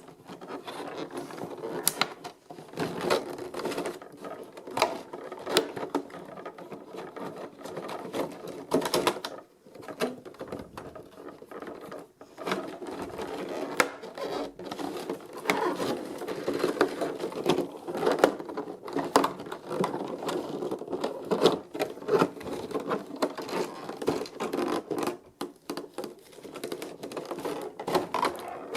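Hands working on a boxed collectible figure's packaging: a dense, continuous run of small clicks, taps and scrapes, with a couple of brief pauses.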